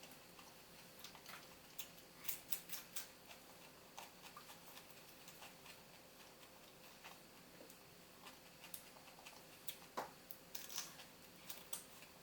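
Faint, irregular crunching and clicking of a person chewing raw cucumber, with a few louder crunches about two seconds in and again near ten seconds.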